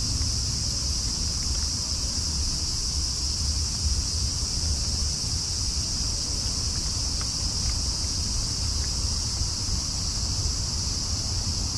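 Steady high-pitched chorus of night-singing crickets over a low rumble, with a few faint ticks as a cat eats from a paper bowl.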